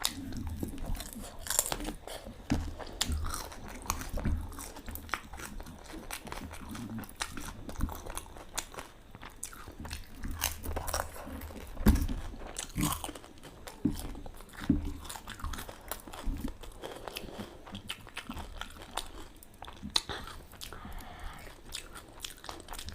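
Close-up crunching and chewing of panipuri, the crisp hollow puri shells cracking irregularly between bites.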